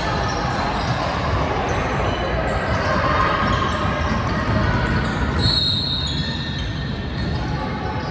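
Basketball game sounds in a reverberant gym: a ball bouncing on the court, with sneakers and spectators' voices mixed in a steady din. A brief high-pitched squeal comes about five and a half seconds in.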